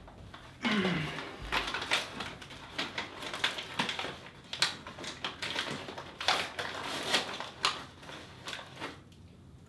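A bag of popcorn crinkling and rustling in a hand, with many short crackles as it is opened and rummaged in. A brief sound falls in pitch about a second in.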